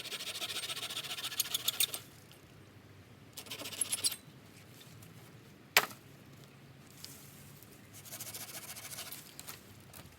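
Handling noises: three bursts of rustling and light clinking, with one sharp click a little before the middle.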